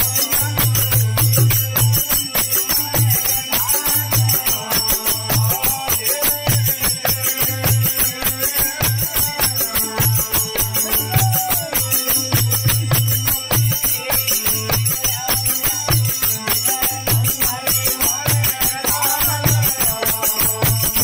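Rajasthani folk bhajan accompaniment: a harmonium playing the tune while brass manjira hand cymbals jingle in a fast, steady rhythm.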